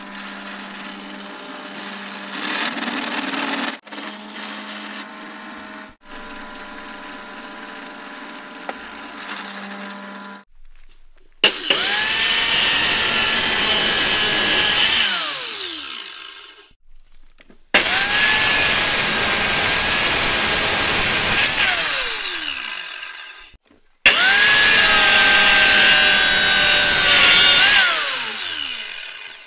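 A bench drill press runs steadily while drilling a metal tube. About eleven seconds in, a Parkside abrasive cut-off saw starts up and cuts through metal tube three times; each cut runs loud and steady for four to five seconds, then the motor spins down with a falling whine.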